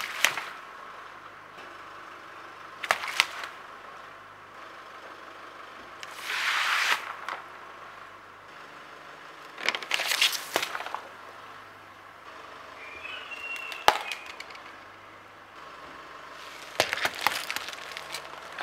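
A car tyre crushing a series of objects one after another, giving sharp pops, cracks and crackling splatters a few seconds apart over a faint steady hum. The first is a water-filled inflatable bursting with a spray of water. The last, near the end, is a watermelon splitting apart.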